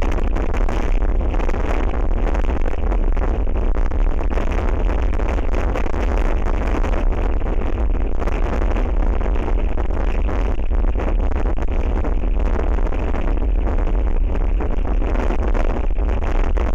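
Strong wind blowing over the microphone: a loud, steady wind noise with a heavy low rumble from the buffeting.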